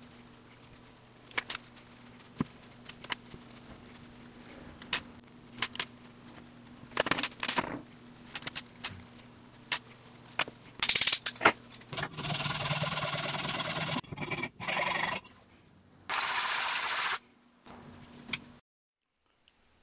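Small metal engine parts and a hex key clicking and clinking as an old RC model glow engine is taken apart by hand, with two longer scraping noises in the second half.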